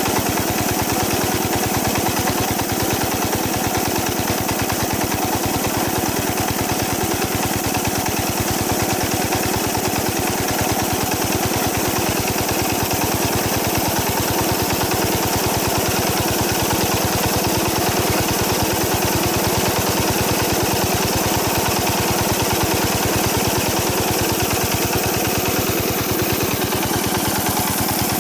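Small old diesel engine running steadily and smoothly while driving a field water pump, with a rapid, even firing beat. Water gushing from the pump's outlet pipe adds a steady splash.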